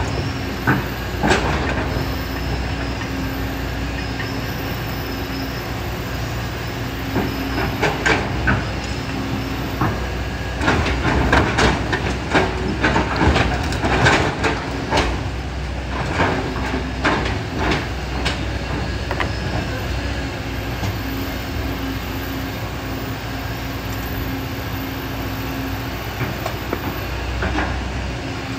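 Kobelco SK200 excavator's diesel engine running steadily under load, with a low hum that swells and fades as it works. A cluster of knocks and clatters in the middle comes from stones and gravel striking the steel bucket.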